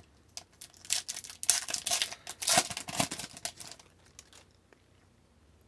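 Foil trading-card pack being torn open and crinkled by hand: a run of crackling rips and rustles that stops about four seconds in.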